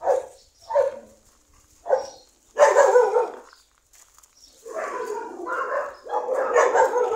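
Dogs barking: single barks about a second apart at first, then a louder run of barking, and a dense, overlapping stretch of barking over the last couple of seconds.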